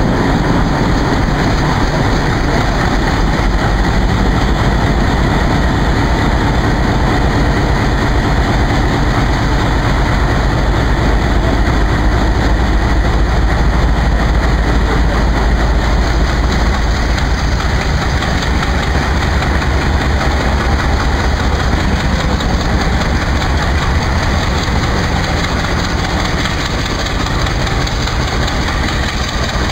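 WDP3A diesel locomotive's ALCO 251 engine running loud and steady, a heavy chugging as it throttles up to pull the train out.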